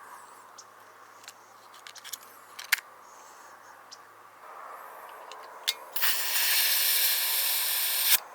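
A few sharp clicks, one much louder about three seconds in, then about six seconds in a loud rush of escaping compressed gas from airsoft gear, lasting about two seconds and cutting off sharply.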